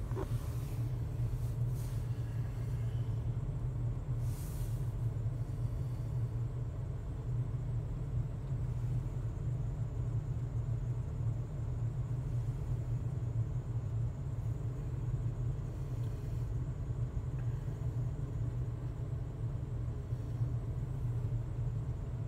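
Ford 6.8-litre Triton V10 of a 2003 E-450 motorhome idling steadily while still cold after a cold start, a low even rumble heard from inside the cab.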